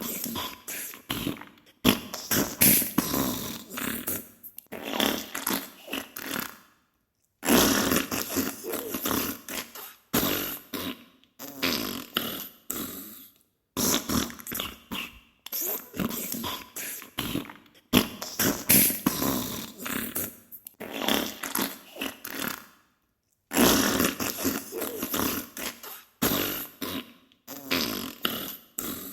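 Diarrhea sound effect: a run of farting bursts, each a second or two long and made of many quick sputtering pops, with short breaks between them and two longer pauses.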